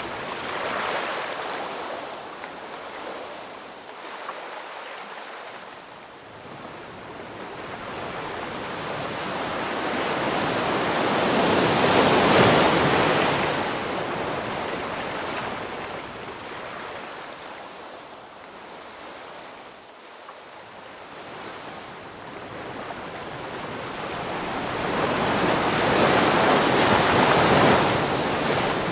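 Ocean waves breaking and washing up on the shore, with swells rising and falling in long cycles: loudest about twelve seconds in and again near the end, quieter in between.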